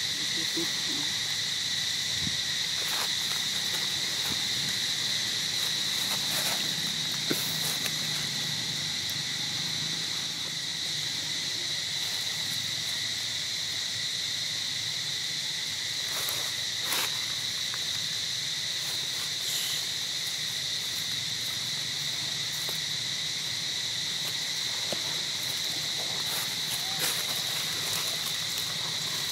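Steady, high-pitched insect chorus that keeps going without a break, with a few faint clicks scattered through it.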